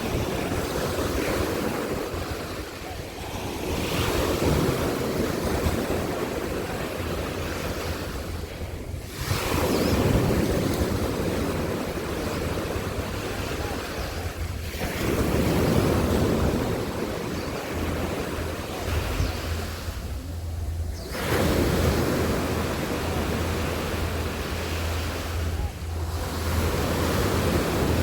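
Sea waves washing onto a beach, swelling and easing about every five or six seconds, with wind rumbling on the microphone.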